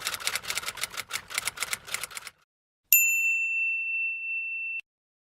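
Typewriter sound effect: a run of rapid key clacks for about two seconds, then a single bell ding about three seconds in. The ding holds one steady tone and cuts off abruptly, like a typewriter's carriage-return bell.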